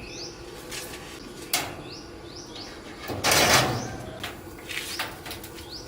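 Repair work on a rice threshing machine: a sharp knock about a second and a half in and a louder scraping rasp a little after halfway, with a few lighter clicks. Short rising bird chirps repeat throughout.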